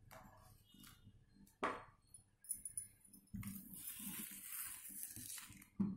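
A steel spoon scraping through frozen butterscotch ice cream in a plastic tub to lift out a scoop: a faint scratchy stretch of about two seconds, after a couple of light knocks.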